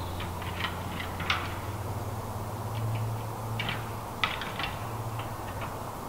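Red deer stags' antlers clacking together as they fight: irregular sharp clicks, a few close together, over a low steady hum.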